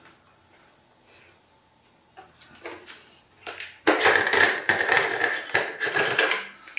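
Plastic screw-in stopper of an IKEA TAGGÖGA vacuum jug being twisted out, a loud rasping scrape of plastic on plastic lasting a couple of seconds in the second half. It is preceded by a few light knocks of the jug being handled.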